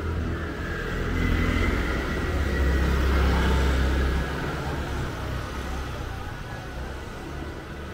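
A motor vehicle passing close by on the street, its low engine rumble building, loudest about three to four seconds in, then fading away.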